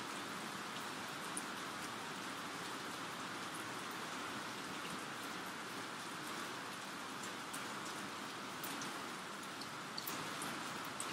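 Steady rainfall, an even hiss with scattered single drops ticking sharply against a surface.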